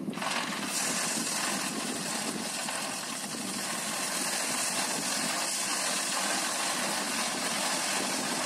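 Heavy dump truck's diesel engine running with its body tipped, as crushed stone slides out of the tailgate in a steady rushing noise.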